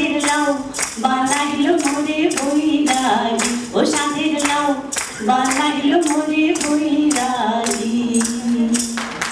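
Women singing a melody into microphones, with clapping keeping a steady beat about three times a second.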